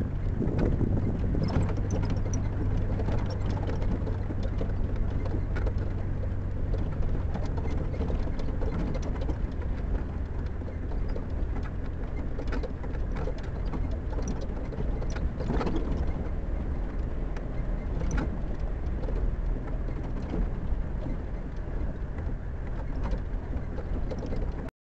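Safari 4x4's engine running steadily as it drives over a rough dirt track, picked up by a camera on the vehicle's roof, with many small knocks and rattles from the bodywork. The sound cuts off suddenly near the end.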